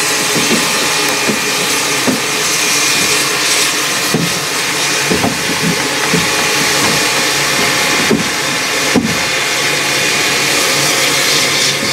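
Wiscasset, Waterville & Farmington No. 9, a two-foot-gauge steam locomotive, hissing steadily and loudly as steam blows off from its safety valve, with a few short knocks through it.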